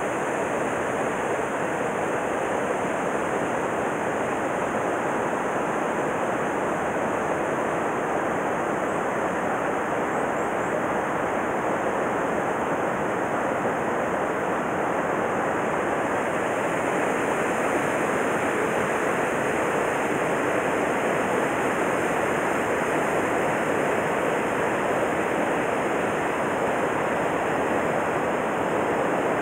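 Mountain stream water rushing over rocks, a steady, even roar.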